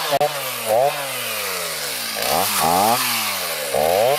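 Two-stroke chainsaw cutting into a tree, its engine revving up and dropping back in pitch over and over, about four times.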